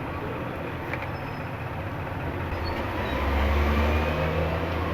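Steady background rumble with a motor vehicle's low engine drone swelling louder about three seconds in.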